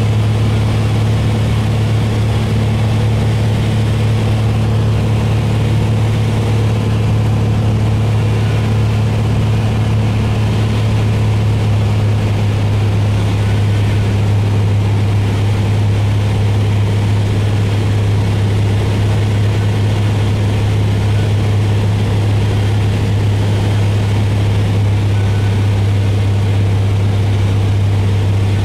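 Beechcraft Bonanza V35's six-cylinder piston engine and propeller droning steadily on final approach, heard inside the cockpit as a loud, deep, even hum.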